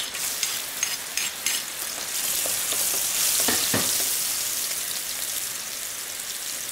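Chopped garlic and shallots sizzling in hot oil in a stainless steel pot while a metal ladle stirs them. Scattered crackles swell into a steady hiss about two seconds in, which then slowly eases. About halfway through, the ladle knocks twice against the pot.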